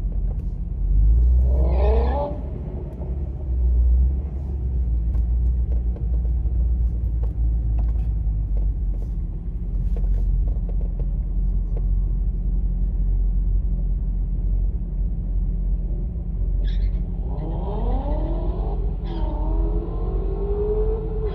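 Car engine idling with a steady low rumble, heard from inside the cabin, with drag-racing car engines revving up in rising sweeps about two seconds in and again near the end.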